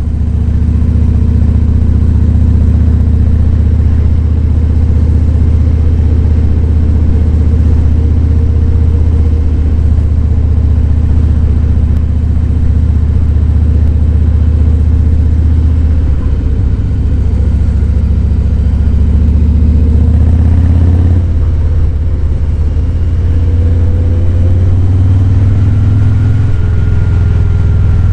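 Harley-Davidson Fat Boy 107's Milwaukee-Eight V-twin engine running under way, a steady low exhaust note. The note changes about sixteen seconds in and again about five seconds later, as the throttle or gear changes.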